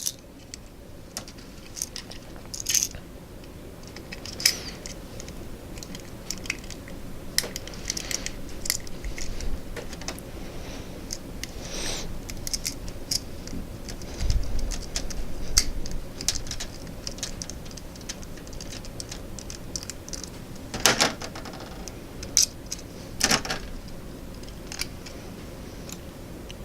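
Small diecast model car being taken apart by hand: scattered light clicks, ticks and taps of small parts and screws, with a low thud about halfway through and a few sharper clicks near the end.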